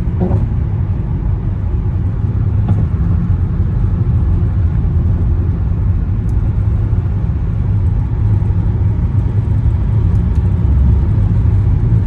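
Steady low rumble of a Honda Accord V6 driving at highway speed: engine and road noise. The car has a sporadic misfire that the driver says does not show in how it drives.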